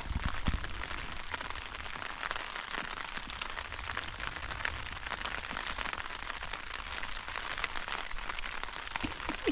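Steady rain falling on a tent's flysheet, heard from inside the tent: an even hiss made of many small drop taps.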